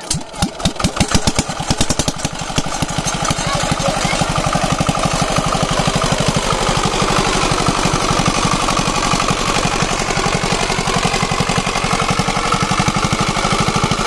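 Small single-cylinder diesel pump engine catching after hand-cranking: separate firing beats that quicken over the first couple of seconds, then a steady run of rapid, even exhaust beats.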